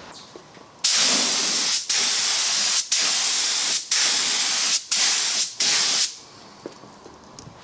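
Gravity-feed spray gun on a compressed-air hose hissing in about seven bursts, roughly a second each, one per pass of the trigger, spraying a diluted sealing coat of shellac. The hiss starts about a second in and stops about six seconds in, with the last bursts shorter.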